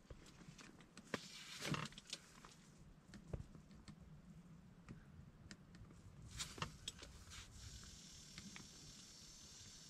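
Near silence: quiet room tone with a handful of faint, scattered ticks and taps, a few of them close together about six and a half seconds in.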